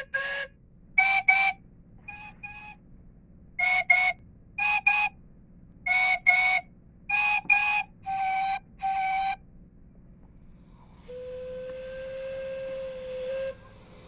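Steam locomotive whistle giving a string of short toots, mostly in quick pairs, then one longer, lower blast near the end.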